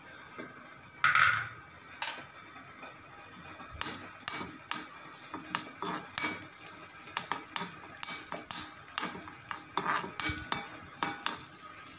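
A spoon scraping and knocking against a non-stick kadai while stirring chopped onions in oil. There is one louder clatter about a second in, then quick, irregular scrapes and taps from about four seconds in.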